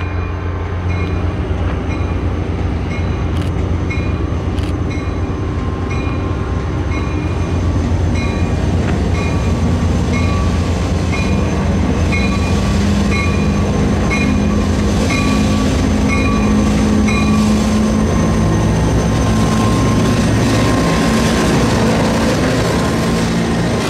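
Diesel locomotives running slowly past at close range, their engines' heavy drone growing louder as they come alongside. A bell dings steadily about once every three-quarters of a second and stops a little past the middle.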